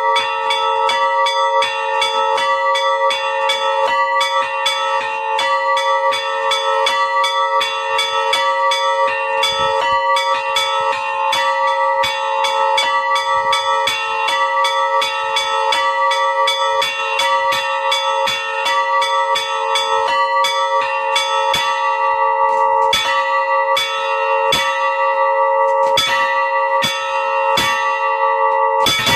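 Three old bells rung in a quick, continuous pattern, about three strokes a second, their tones ringing on between strokes. In the last several seconds the strokes come more sparsely.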